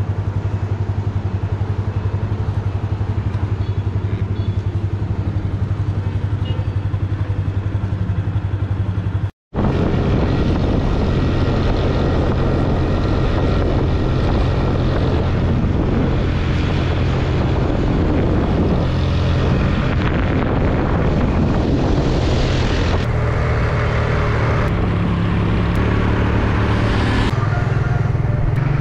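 Motorcycle engine running steadily with a low hum. It breaks off for an instant about nine seconds in and then carries on with more wind and road noise mixed in.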